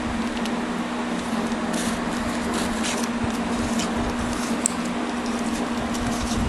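Mallory Super Luxo 30 cm, 70 W electric fan running steadily: an even rush of air from the blades over a constant motor hum.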